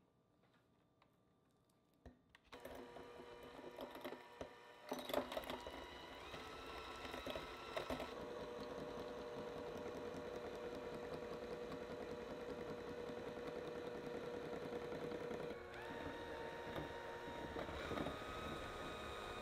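Electric hand mixer whipping butter into buttercream as custard anglaise is added, its motor running with a steady whine that shifts in pitch a few times. It starts after a couple of seconds of near silence and a few clicks.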